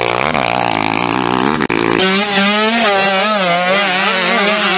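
Motocross dirt bike engines revving, the pitch rising and falling as the throttle is worked. The sound changes abruptly about two seconds in.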